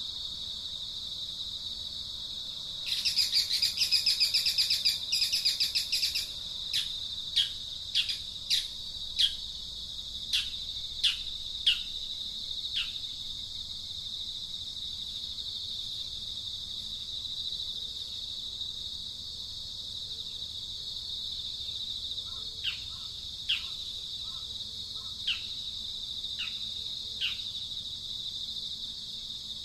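Steady high-pitched insect drone, with a bird calling over it: a few seconds of fast rasping chatter, then a string of short falling notes about one a second, and a few more falling notes near the end.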